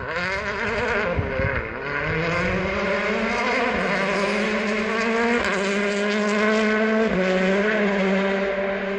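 Hyundai i20 World Rally Car's turbocharged four-cylinder engine at full rally pace: its pitch falls as it passes, then it keeps running hard as it goes away along the forest stage, with a jump in pitch about five and a half seconds in and a drop about a second and a half later as the driver works the gears.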